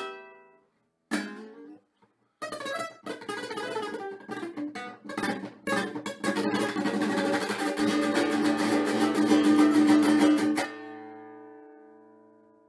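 Classical guitar played solo: two single strummed chords, then about two seconds in a run of fast strumming that grows denser and louder, ending about ten and a half seconds in on a final chord that is left to ring and fade.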